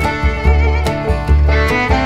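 Background music: an upbeat country-style tune with fiddle over a steady bass beat.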